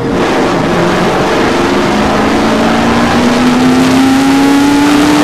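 Stock car V8 engines running at speed around the oval, one engine's pitch climbing steadily through the second half.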